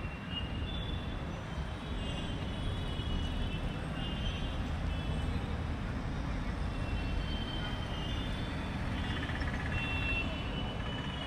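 Busy city street traffic: a steady rumble of passing vehicles, with short high tones sounding now and then.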